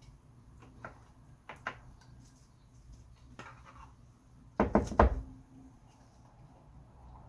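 A few light taps and clicks, then a quick run of about four loud knocks some four and a half seconds in.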